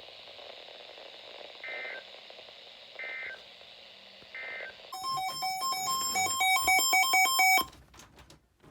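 Emergency Alert System end-of-message code: three short warbling digital data bursts about 1.4 seconds apart over radio hiss. About five seconds in comes a loud, fast run of overlapping beeping tones like touch-tone dialing, which cuts off suddenly and is followed by a few clicks.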